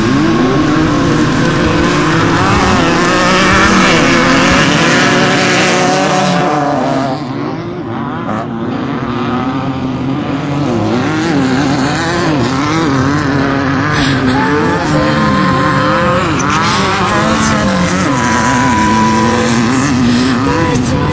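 Desert off-road race vehicles' engines revving hard, the pitch rising and falling continually as they race over rough ground and pass by. The engine sound eases briefly about seven seconds in, then picks up again.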